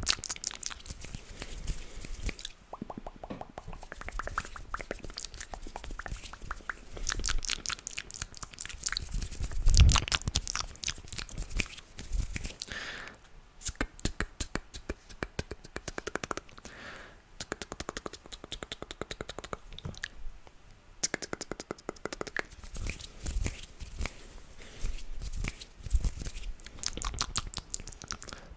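Close-miked ASMR mouth and hand sounds: rapid runs of wet clicks and crackles, with a few louder low thumps and short pauses between runs.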